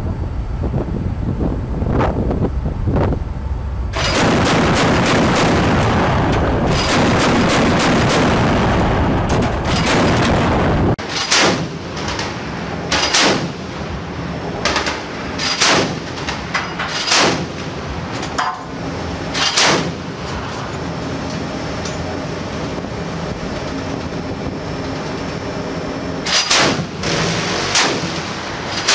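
Loud wind and sea noise for about the first ten seconds, then a Mk 38 Mod 2 25 mm chain gun firing single shots, one every second or two, with a pause of several seconds before a few more near the end.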